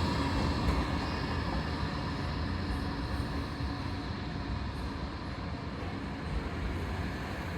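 Electric tram on the Blackpool tramway running along the track, a steady rumble that slowly fades as it draws away.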